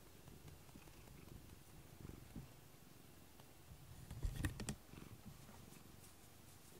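Domestic cat purring faintly while being stroked, a low rumble throughout. About four seconds in, a short burst of rustling clicks.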